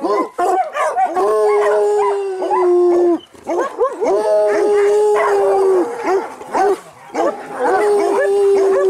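A pack of hounds baying and howling together, many voices overlapping. Three long drawn-out howls of about two seconds each stand out, about a second in, about four seconds in and near the end, over many shorter bays and yelps.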